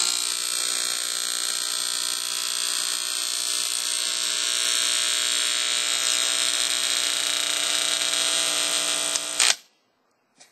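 A 4x6-inch Delco OEM car door speaker driven far past its rating in an attempt to blow it, blaring a loud, steady buzzing tone. The sound cuts off abruptly about nine and a half seconds in.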